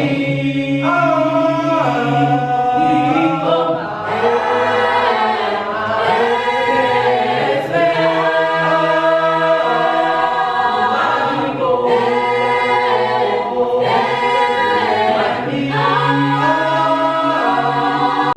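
A choir singing in harmony, several voices holding long chords that change every second or two.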